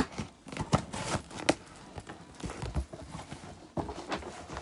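Large cardboard box being cut open with scissors and its flaps pulled open: irregular clicks, knocks and scrapes of blades and cardboard.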